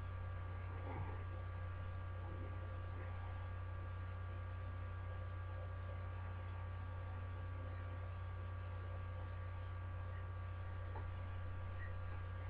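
Steady low electrical hum with a few faint, thin higher tones held above it; nothing else stands out.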